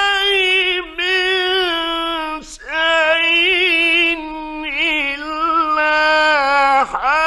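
A male reciter chanting the Quran in the melodic mujawwad style, in a high voice. He holds long notes ornamented with trills and wavers, with short breaths between phrases.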